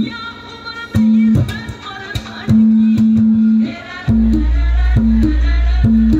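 Dance music with a repeating low drum note and a melody line above it; a deep bass comes in about four seconds in.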